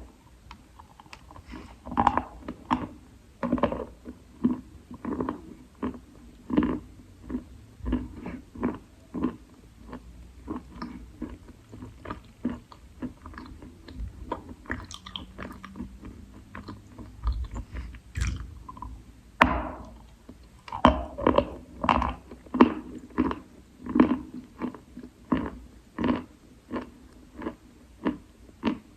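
Lumps of wet Khrapovsky chalk being bitten and chewed close up: a steady run of short, wet crunches, a little under two a second.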